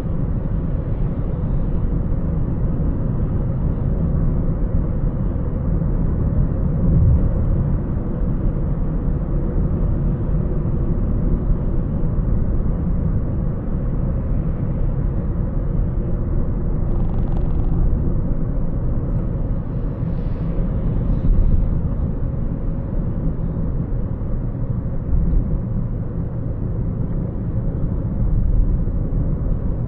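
Car driving through city traffic: a steady low rumble of road and engine noise, with a couple of faint, brief higher sounds around the middle.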